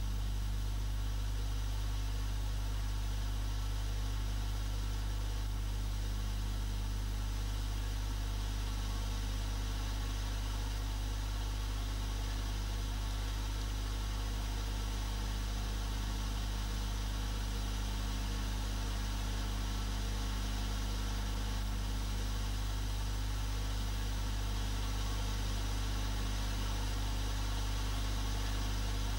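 Steady low electrical hum with a faint hiss above it, unchanging.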